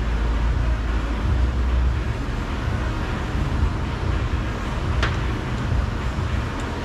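Steady low rumble and hiss of outdoor background noise, with one sharp click about five seconds in.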